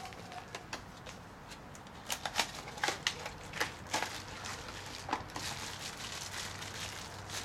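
Scattered light clicks and taps of small metal parts and hand tools being handled, in irregular clusters.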